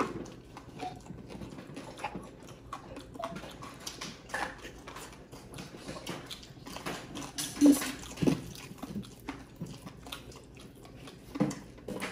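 Close-miked chewing and biting of roast chicken and rice eaten by hand: soft, irregular mouth clicks and smacks, with a few louder ones past the middle and near the end.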